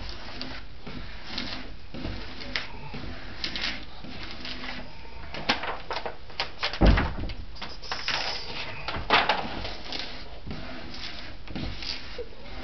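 Rustling and scraping as a vinyl decal on its application tape is handled and worked back down, with scattered clicks and a few sharp knocks, the loudest about seven seconds in and another about nine seconds in.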